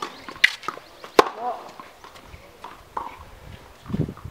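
Tennis racket striking the ball: a sharp crack about a second in, with a lighter knock just before it, then a low scuffling thump near the end.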